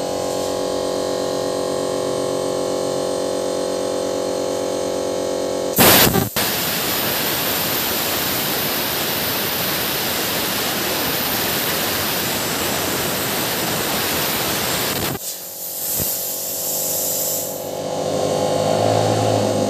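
Plasma cutter cutting steel plate: a steady buzzing hum, then about six seconds in the arc strikes with a sharp crack and cuts with a loud, even hiss for about nine seconds before stopping suddenly. A quieter hum and a swelling hiss follow near the end.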